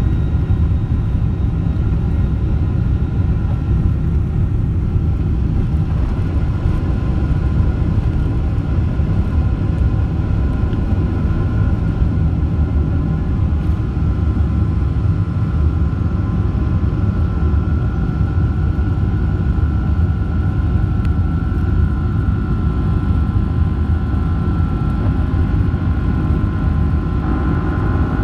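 Boeing 777-300's turbofan engines at takeoff thrust, heard from inside the cabin during the takeoff roll and liftoff. The rumble is loud and steady, with a steady high fan whine over it.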